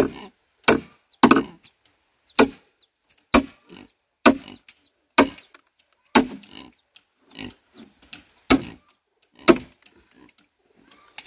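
Hammer striking iron wedges driven into a log to split it: about a dozen sharp, ringing metal-on-metal blows, roughly one a second. The log is slow to open because of its knots.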